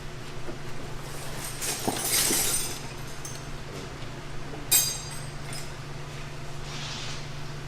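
Metal hand tools clinking and clattering, likely a 13 mm socket and wrench being picked out and fitted, with one sharp clink just before five seconds in being the loudest.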